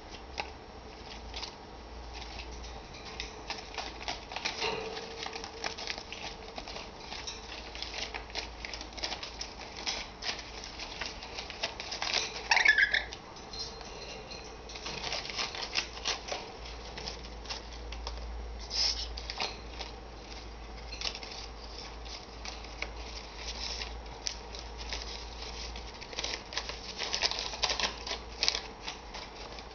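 Rainbow lorikeet playing with paper and scrambling on a metal wire cage: many small taps, clicks and rustles. Near the middle it gives one short call, the loudest sound.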